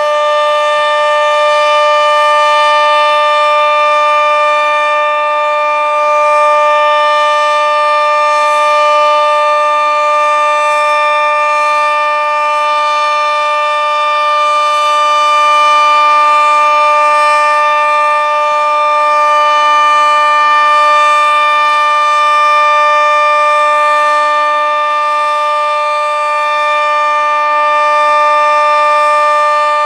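Sentry 40V2T two-tone outdoor warning siren sounding its steady alert tone, a sustained chord with no change in pitch. The loudness swells and fades slowly every several seconds as the rotating siren sweeps toward and away.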